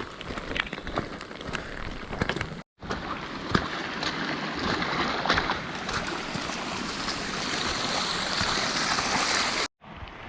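Steady rushing hiss of heavy rain and water running down a flooded hiking trail, dotted with short sharp taps and knocks. The sound drops out completely for a moment twice.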